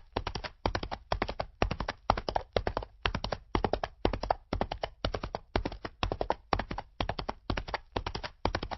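Horse hoofbeats sound effect: a steady, even rhythm of clip-clopping hoof clusters, about two and a half a second, that cuts off suddenly at the end.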